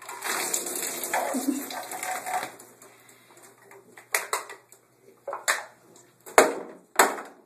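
Beer gushing and fizzing out of a punctured can as it is shotgunned, for about two and a half seconds. Then several sharp clattering knocks, like cans being crushed and set down.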